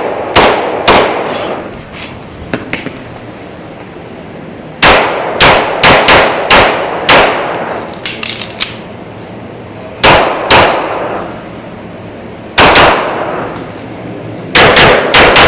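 Pistol shots fired in quick pairs and strings during a timed IDPA stage, echoing in an indoor range: about seventeen shots in five groups, with pauses of a second or more between groups while the shooter moves or reloads.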